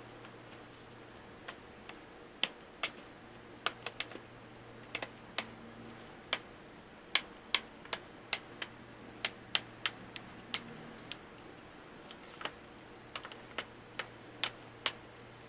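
Plastic clips of a Chromebook's lid snapping into place as its edges are pressed by hand: some thirty sharp, separate clicks at an uneven pace.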